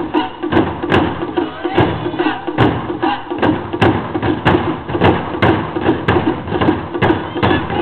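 Miyake-style taiko: several nagado-daiko barrel drums on low stands struck with bachi sticks in a steady driving rhythm, about two strikes a second, with sharp wooden clicks among the drum hits.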